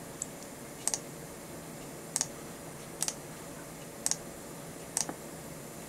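Computer mouse clicks, sharp and about one a second, several in quick double pairs, over a faint steady hum.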